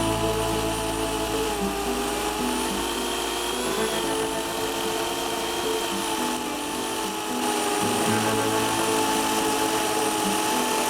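Homelite electric chainsaw motor running with a steady whine that wavers slightly in pitch, under background music.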